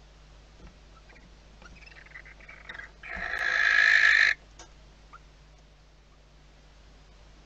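Barn owl giving one harsh screech about a second long, growing louder and cutting off suddenly about three seconds in, after a few fainter rasping sounds.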